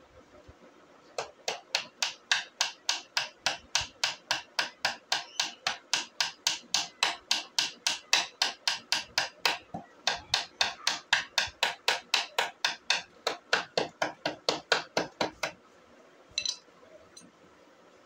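A hand tool working in fast, even strokes, about four a second, each stroke sharp and bright. The strokes break off briefly about ten seconds in, then resume and stop about fifteen seconds in.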